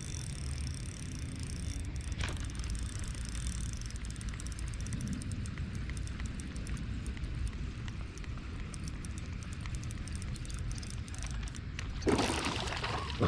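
Low wind rumble on the microphone with a faint steady high hiss, then a sudden rush of splashy noise about twelve seconds in.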